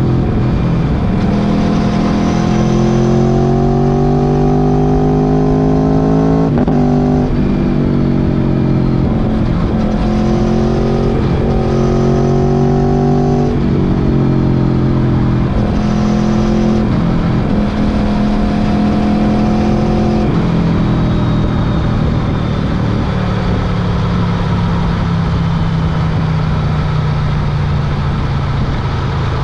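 Motorcycle engine accelerating hard, its pitch climbing and dropping back at each upshift several times, then settling into a steadier, lower drone for the second half.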